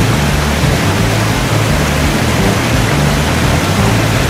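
Steady rushing of a small mountain stream cascading over granite slabs, with low notes of background music underneath.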